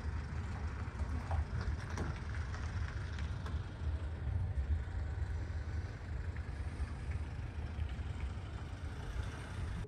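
Vehicle driving: a steady low road rumble, with a few faint clicks and rattles.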